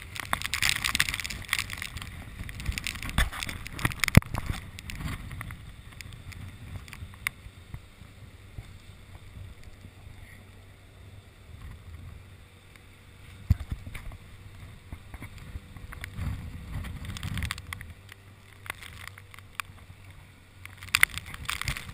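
Small open boat moving through floodwater: water sloshing against the hull and wind buffeting the microphone, with occasional sharp knocks, one strong one about four seconds in. The sound is busiest at the start, eases off in the middle and picks up again near the end.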